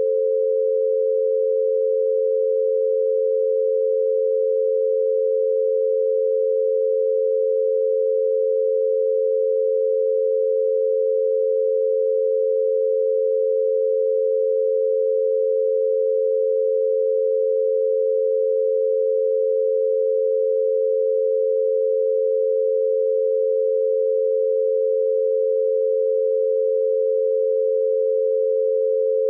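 Binaural beat: two steady pure tones a little apart in pitch, set about 88 Hz apart so that on headphones each ear gets its own tone, held level and unchanging.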